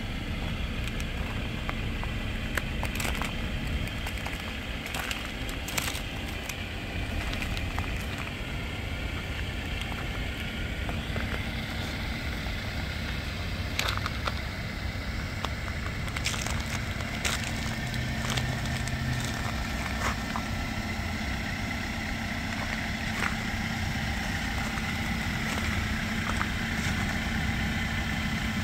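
A 2020 Jeep Wrangler Sport S idling steadily, with scattered crunching footsteps in wet slush and snow.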